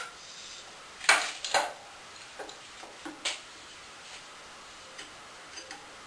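Sharp clicks and clinks of hand tools and small metal engine parts being handled during small-engine disassembly: two loudest knocks about a second in, a couple more around three seconds, then a few faint ticks.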